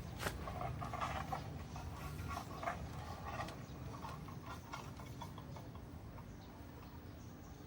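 Irregular light knocks, clicks and rustling, busiest at first and growing fainter toward the end.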